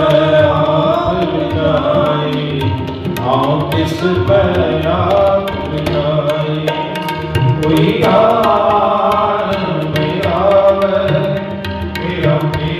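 Sikh devotional kirtan: a male voice singing a wavering melody over harmonium, with tabla playing a steady rhythm of quick strokes.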